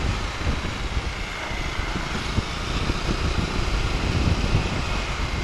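Bajaj Dominar 250 motorcycle riding at a steady speed: its single-cylinder engine running under a steady rush of wind on the microphone.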